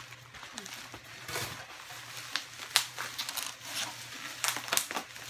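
Plastic bags and packing wrap crinkling and rustling as they are pulled out of a cardboard box, with irregular crackles. The sharpest crackle comes about three seconds in.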